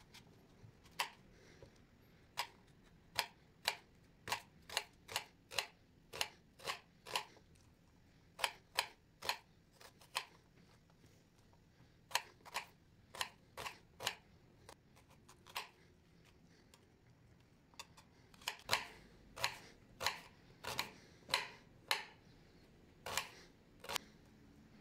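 A kitchen knife slicing through an onion and striking a glass cutting board with each cut: sharp, irregular clicks, one or two a second, with a pause of a couple of seconds about two-thirds of the way through.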